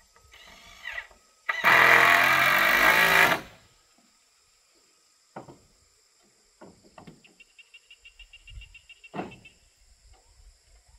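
A handheld power tool runs steadily in one loud burst of about two seconds, followed by a few scattered wooden knocks and clatters of boards being handled on the timber frame.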